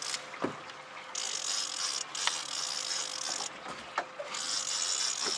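Conventional fishing reel being cranked hard in spells, its gears whirring, with short pauses between spells and a few sharp clicks, as a snagged paddlefish is reeled in.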